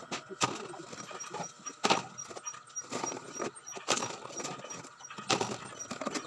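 Empty plastic bottles and scrap clattering and crinkling as they are handled and sorted by hand, with a few sharp knocks.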